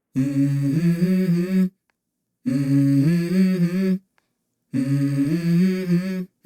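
Music: a wordless hummed vocal phrase sounding three times, each about a second and a half long, with short silences between.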